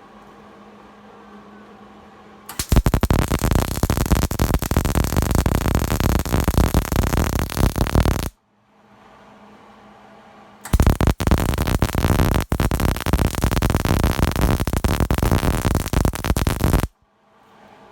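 Gas-shielded wire-feed (MIG) welding arc crackling and sputtering in two passes of about six seconds each, both starting and stopping abruptly. Between the passes a quieter steady low hum carries on.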